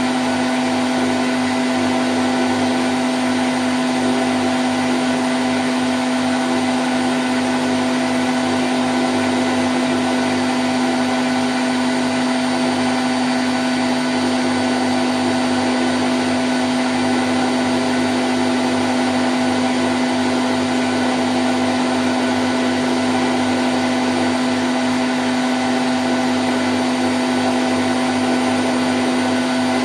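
Candy Grand O' F106 front-loading washing machine in its spin cycle at 1000 rpm: a steady whirring rush with a strong, even low hum and fainter steady tones above it, unchanging throughout.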